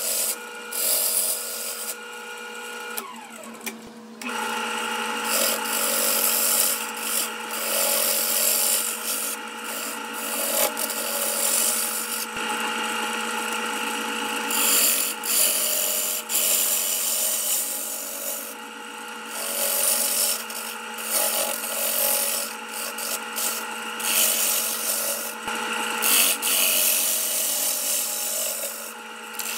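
Grizzly wood lathe running with a steady motor hum while a turning tool cuts into a spinning aromatic cedar bowl blank. The cut is a hissing scrape that swells and fades with each pass, with a short lull about three seconds in.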